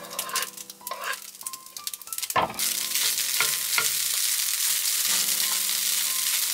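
Egg fried rice frying in a pan, stirred and scraped with a wooden spatula. About two and a half seconds in, a loud, steady sizzle starts.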